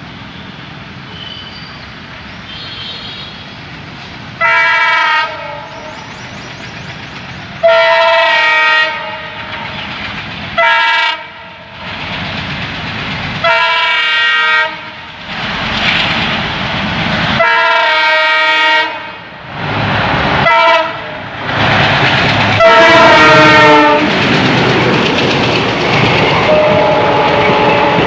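WDM3D diesel locomotive's horn sounding about seven blasts, some long and some short, as the train approaches. The running noise of the locomotive and the wheel clatter on the rails grow louder, becoming loud and continuous near the end as the train passes.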